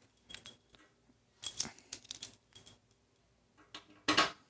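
Small metal hardware being handled, clicking and clinking in four short clusters.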